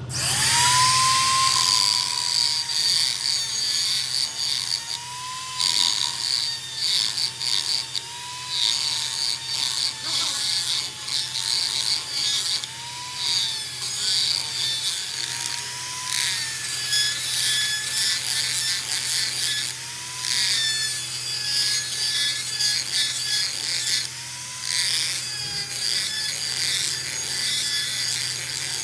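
A power tool working on metal: a motor whine that wavers slightly in pitch over a continuous scraping hiss and a low steady hum.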